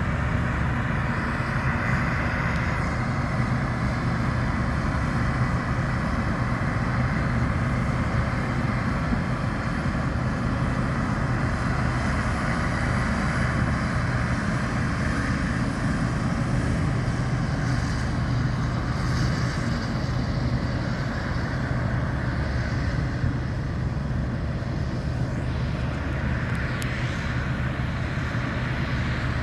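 International 2388 combine harvester running steadily while harvesting wheat: a constant engine and threshing-machinery drone with a low hum.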